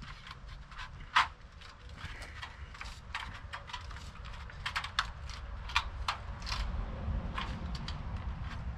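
Thin sheet-metal gutter piece being bent by hand over a board: irregular clicks and ticks as the metal flexes and creases, with one sharper click about a second in.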